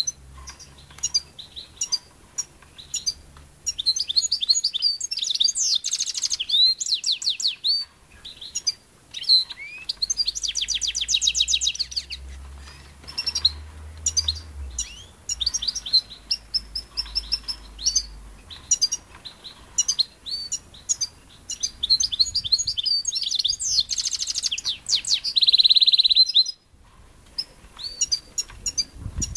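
Caged European goldfinch and canary singing: a fast twittering run of chirps, trills and buzzy notes that comes in busy bursts with short breaks between.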